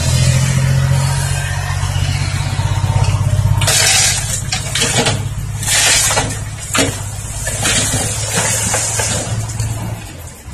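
Six-wheel dump truck's diesel engine running at raised revs to work the hydraulic tipper as the bed lifts. From about four seconds in, the load of soil and rock slides out of the tail in a run of rushing, clattering pours, and the engine drops back near the end.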